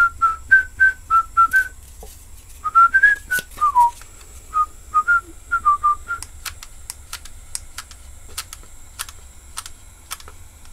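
A person whistling a short tune in brief notes for about six seconds, then scattered light clicks from handling parts.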